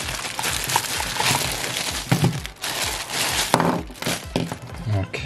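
Thin clear plastic bag crinkling and rustling with many small crackles as hands open it and pull a small plastic protein skimmer out.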